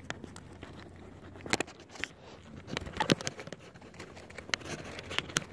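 A white-tailed deer nibbling and chewing food from a person's hand: scattered, irregular soft clicks and crunches.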